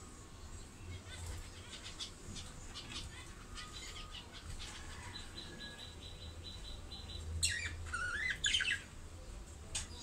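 Budgerigars chattering: a stream of short chirps and a fast run of ticking clicks, then a few louder squeaky chirps about three-quarters of the way through.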